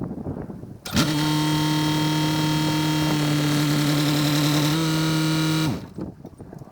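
A motor runs at one steady pitch for nearly five seconds. It spins up quickly about a second in, steps up slightly in pitch near the end, then winds down and stops abruptly.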